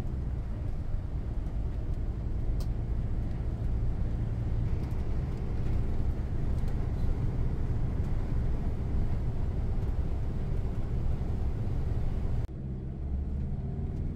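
Steady cabin noise of a vehicle driving on a wet road: low engine and road rumble with tyre noise. The rumble drops suddenly to a slightly quieter level near the end.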